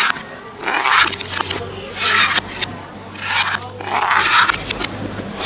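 Metal spoon scraping the inside of a mortar, in short strokes about once a second, as salad and dressing are scooped out onto a plate.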